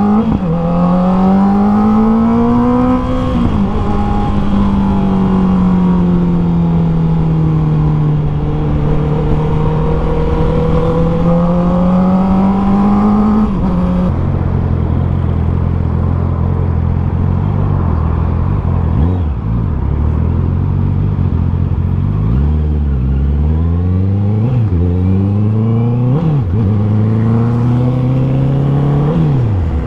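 Honda CB650R's 649 cc inline-four engine through an Akrapovic full exhaust system, ridden under throttle. The revs climb over the first few seconds and hold fairly steady. About halfway they drop to a lower note, then rise and fall several times near the end.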